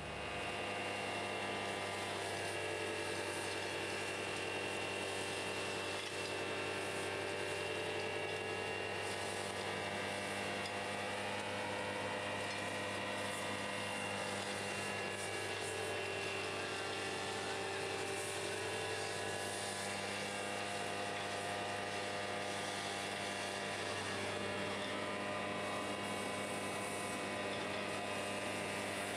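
Hydrovac excavator truck running steadily while excavating, its engine and vacuum system giving a continuous hum and whine with no change in pitch.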